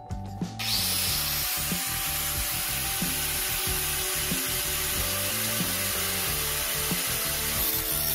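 Angle grinder with a thin cut-off disc starting up about half a second in, then cutting steadily into a stainless steel sheet with a loud, hissing grind. Background music plays underneath.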